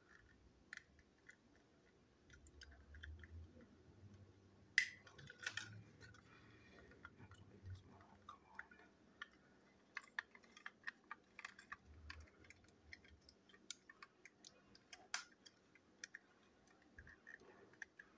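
Faint scattered clicks and taps of small plastic parts being handled as the shell of a Plarail toy train is prised off its chassis, with a few sharper clicks about five seconds in and again near fifteen seconds.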